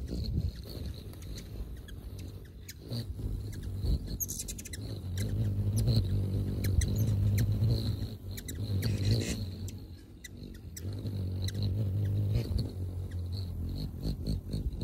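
Hummingbirds' wings humming as they hover close by, the hum swelling and fading as birds come and go, with scattered short sharp high chips and ticks.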